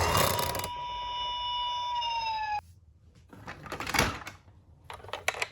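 A toy police car's siren sound: one long tone that sinks slightly in pitch and cuts off abruptly about two and a half seconds in. A few sharp clicks and knocks follow.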